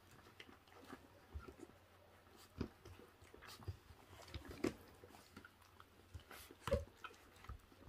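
Several puppies chewing and tearing at a raw duck carcass: faint, scattered wet chewing with small clicks of teeth on meat and bone.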